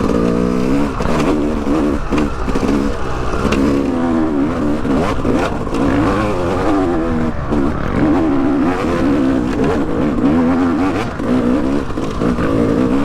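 Yamaha YZ250X two-stroke dirt bike engine revving hard, its pitch rising and falling again and again as the bike works up a hill climb.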